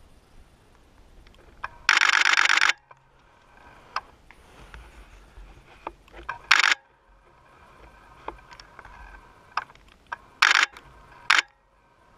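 Camera shutter firing in continuous high-speed bursts: one long burst of about three-quarters of a second about two seconds in, then three shorter bursts later on, the last very brief. Faint handling clicks come between them.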